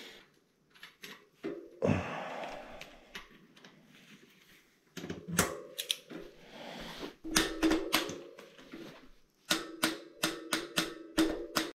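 Bursts of rapid metallic ratchet clicking and a few knocks as a mountain bike rear hub is reassembled and tightened with a ratchet wrench. The clicks come in quick runs, thickest in the second half.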